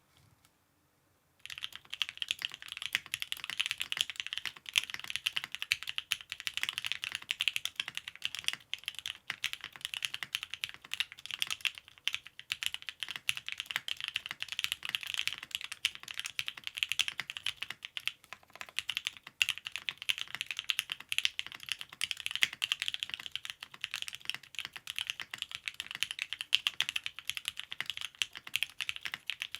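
Steady, fast typing on a Bakeneko 65 mechanical keyboard with lubed Durock L7 linear switches, an aluminum plate and GMK ABS keycaps: a dense run of sharp keystroke clicks that starts about a second and a half in.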